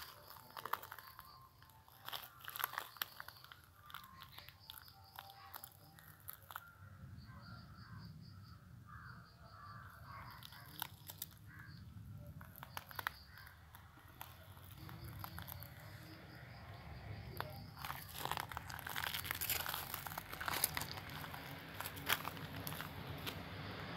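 Scattered crunching and clicking sounds close to the microphone, with faint short high chirps repeating in runs now and then; a rougher rushing noise builds over the last few seconds.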